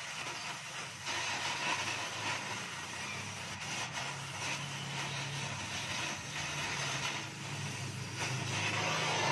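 Gas welding torch hissing as it welds a steel exhaust pipe under a car, the hiss swelling and easing in patches. A steady low motor drone runs underneath.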